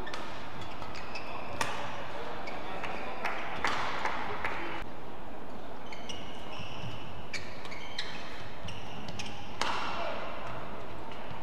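Badminton play in a large hall: sharp racket hits on the shuttlecock and many short high squeaks of shoes on the court mat, over a steady hall murmur, with a brief swell of crowd noise after the loud hit about three and a half seconds in and again near the end.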